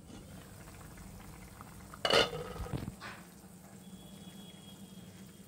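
Chicken gravy boiling softly in a covered steel pot, with one sharp clink of the glass-and-steel lid about two seconds in and a lighter knock about a second later.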